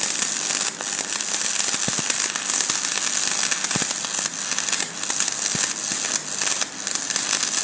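Stick (shielded metal arc) welding with a 6013 electrode: the arc crackling and hissing steadily as the rod is weaved along the joint, with a few brief dips.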